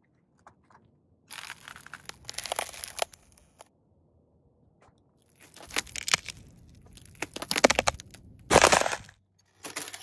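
Thin ice cracking and crunching under the weight of boots: bursts of rapid crackling separated by short pauses, with a short, loud crack about two-thirds of the way through and another burst starting near the end.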